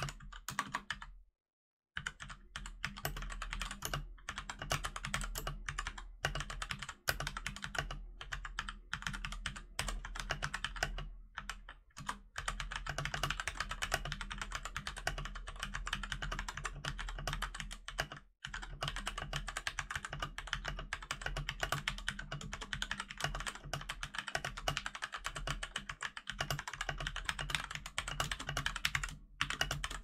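Rapid, continuous typing on a plastic-framed Keychron K4 mechanical keyboard with Gateron Brown tactile switches: a dense stream of key clicks and clacks. The sound cuts out completely for about half a second around a second and a half in.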